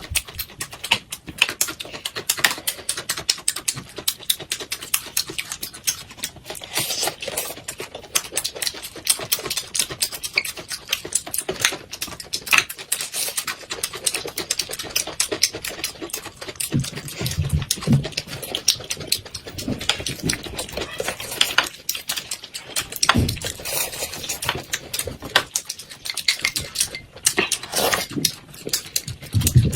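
Close-up eating sounds: chewing and lip-smacking on braised duck, a dense run of irregular wet clicks, with a few short low hums or grunts about halfway and near the end.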